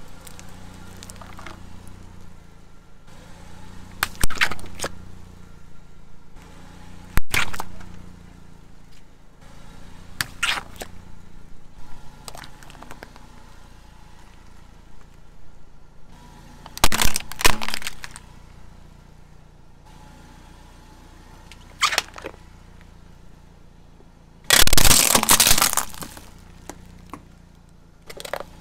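A car tyre rolling over plastic toys and crushing them: a series of sharp cracks and crunches, several sudden snaps spread over the stretch and a longer, loud crunching break near the end. A low steady hum runs underneath.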